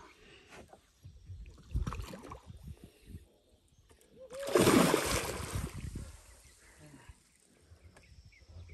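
Hooked giant snakehead thrashing and splashing at the water's surface during the fight: a smaller splash about two seconds in, then one loud splash lasting about a second and a half, beginning around four seconds in.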